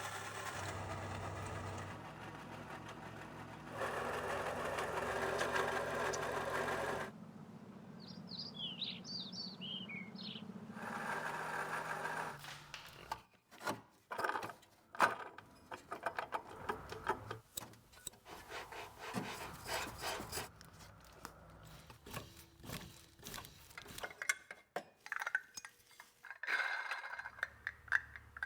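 Steady mechanical running noise in the first half, loudest for a few seconds near the start, then irregular clicks, knocks and rubbing in the second half. This fits an engine's water pump with a bad bearing growling, and the belt-driven pulleys being handled and spun by hand to find the growl.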